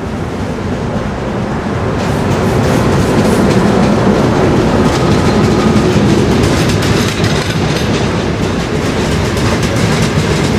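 A diesel-hauled passenger train pulls in alongside the platform: the locomotive passes close and its coaches roll by, wheels clacking over the rail joints. It grows louder over the first few seconds, then holds steady.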